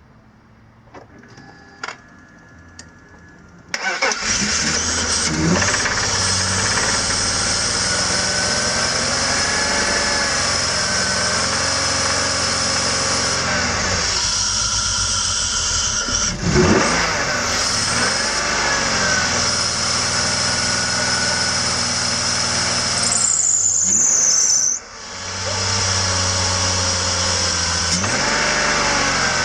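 BMW 330i's M54 straight-six engine starting about four seconds in after a few clicks, then running, with oil poured into the cylinders to restore its sudden loss of compression. The engine note rises and falls now and then, and dips sharply for a moment near the end before picking back up.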